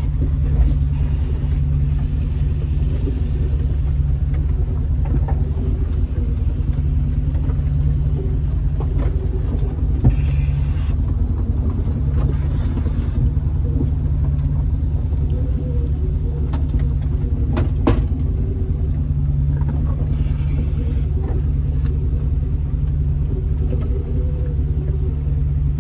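Jeep engine running steadily at low speed as it tows a disabled RZR side-by-side on a strap over a rocky trail, a constant low rumble. A few sharp clicks about two-thirds of the way through.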